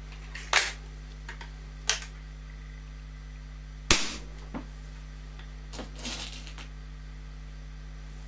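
SMK XS20 .177 break-barrel spring air rifle: two sharp clicks as it is handled and readied, then a single shot about four seconds in, a sharp crack with a low thump. A short rattle of handling follows.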